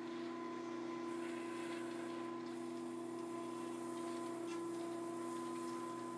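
Small electric motors humming steadily at a fixed pitch, with a few faint ticks.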